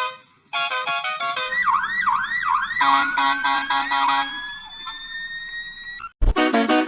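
A quick run of edited bus-horn sound variations: stepped chords of pitched horn notes, a siren-like wail that swoops down and up about three times, and a long slowly rising tone. A short low thump comes about six seconds in, followed by another burst of horn notes.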